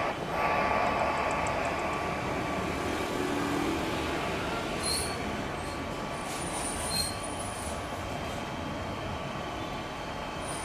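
Two CFM56 jet engines of a Boeing 737-800 at takeoff thrust during the takeoff roll: a steady rushing roar, loudest in the first few seconds and then a little lower and even.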